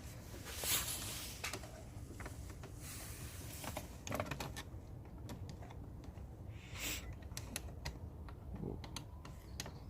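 Hand tools tightening a fastener on an aftermarket air intake in a car's engine bay: irregular light clicks and taps, with a couple of brief scraping swishes.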